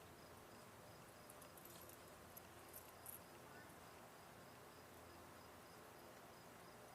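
Near silence, with a faint, evenly pulsing high-pitched insect chirp and a few faint ticks.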